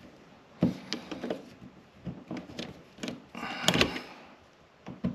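Irregular clicks and knocks of hand tools working on an electrical outlet and its box, with a louder clatter about three and a half seconds in.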